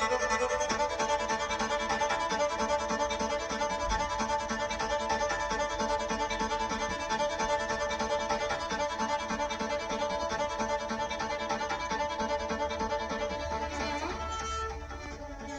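Background music with violin playing sustained melodic notes, fading somewhat near the end.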